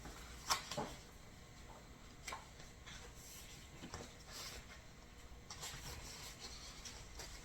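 Paperback journal being handled: faint, scattered rustles and light taps of paper and cover.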